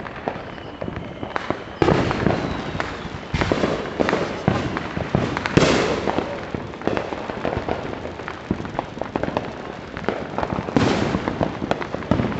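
Neighbourhood fireworks: a steady crackle of firecracker pops with several bigger booms that trail off, the loudest about five and a half seconds in.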